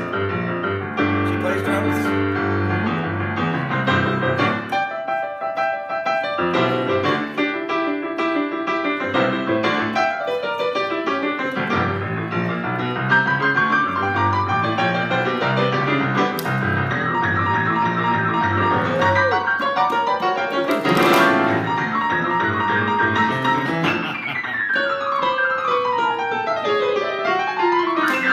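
Digital stage piano played solo in a piano voice, both hands on chords and melody, with fast sweeping runs down and then up the keys near the end.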